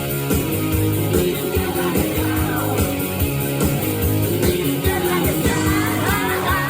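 Rock song playing: a steady drum beat under guitar and bass, with a singing voice coming in near the end.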